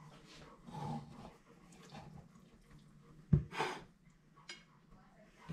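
Metal spatula working a slice of shepherd's pie out of a cast iron skillet and onto a plate: soft scraping and shuffling, then a single sharp clack a little over three seconds in, followed straight away by a brief scrape.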